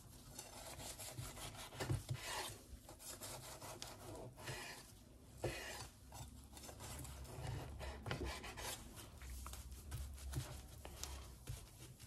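Chef's knife slicing through a cooked cowboy steak's charred crust, a series of irregular scraping strokes that end against a wooden cutting board.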